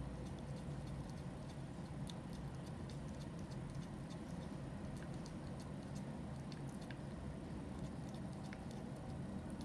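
A cat lapping and chewing soup, making small, irregular clicks over a steady low background hum.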